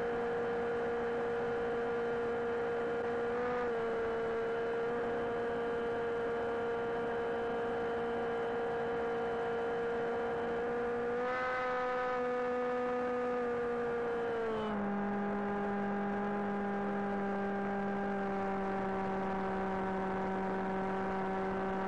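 Brushless motor and propeller of an FPV flying wing, heard from the onboard camera: a steady high-pitched whine over rushing air. The pitch rises a little about 11 seconds in, then drops to a lower steady pitch about 15 seconds in as the throttle changes.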